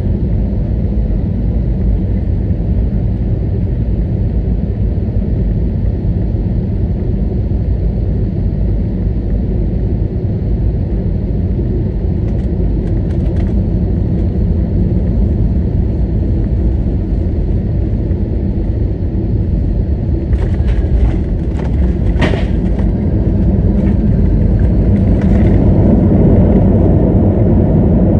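Airliner cabin noise inside an Airbus A321neo: a steady low rumble of engines and airflow. A few faint clicks come about twelve seconds in, a sharper knock about twenty-two seconds in, and the rumble grows a little louder near the end.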